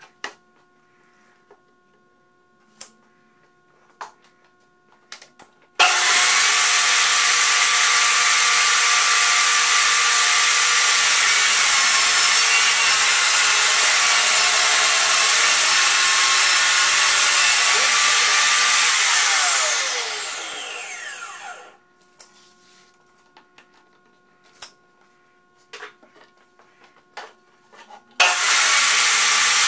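Portable jobsite table saw switched on about six seconds in, running at full speed while a softwood panel is fed through the blade, then switched off and winding down with a falling whine. Light knocks and clicks come between runs, and the saw starts up again near the end.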